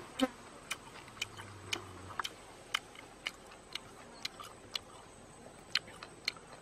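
Close-up chewing and lip-smacking while eating grilled chicken: short, sharp, wet mouth clicks coming irregularly, about twice a second.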